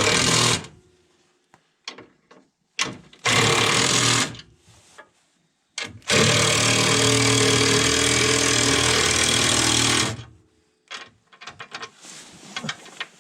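A power driver running in three bursts, the last about four seconds long, driving in the bolts that fasten the plow's anchor plate to the base plate. A few light clicks follow near the end.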